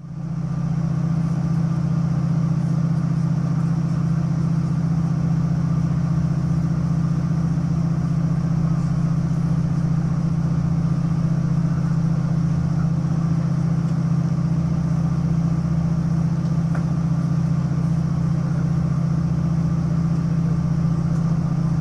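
DR3000 diesel multiple unit's engine running with a steady low drone, heard from inside the carriage as the train rolls slowly past the platform. It comes in abruptly right at the start and holds even throughout.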